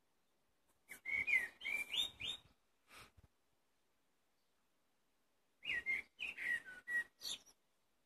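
Common blackbird singing: two fluty, warbled whistled phrases, one about a second in and another near six seconds, each ending in higher, thinner twittering notes.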